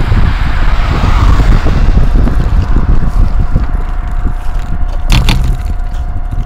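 Wind rumbling on the microphone, with knocks and rattles from an electric bicycle riding over a rough footpath and a thin steady whine underneath. A short harsh burst of noise comes about five seconds in.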